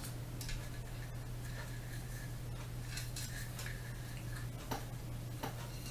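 Scattered light clicks and taps as the rifle barrel and a bore snake are handled and fed into the barrel, over a steady low hum.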